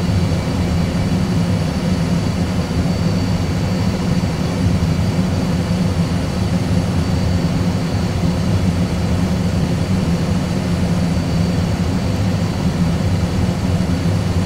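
Airbus A320 full flight simulator's cockpit sound: a steady low rumble of engine and airflow noise with a faint high whine, the one working engine held at take-off/go-around (TOGA) thrust while the other is shut down.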